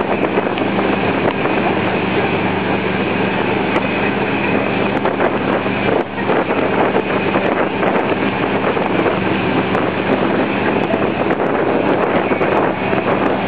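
A tow boat's engine running steadily at surfing speed, under the rushing white water of its wake and wind buffeting the microphone.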